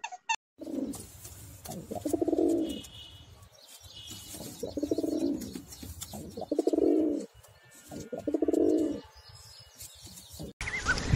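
Domestic pigeon cooing: five low, rounded coos, each about a second long, with short pauses between them. Just before the end the sound cuts abruptly to louder, higher-pitched calls.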